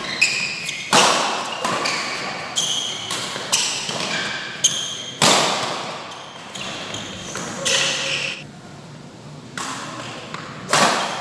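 Badminton doubles rally: sharp racket strikes on the shuttlecock about once a second, mixed with short high squeaks of shoes on the court floor. The strikes pause briefly a little after the middle.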